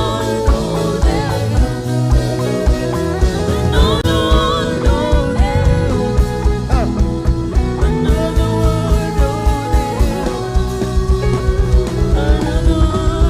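Live gospel worship band playing, with a fast, steady drum beat under sustained keyboard and guitar notes and some singing.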